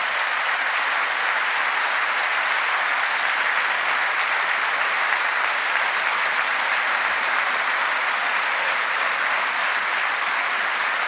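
Large audience of members of Congress applauding steadily and loudly, a dense sustained clapping.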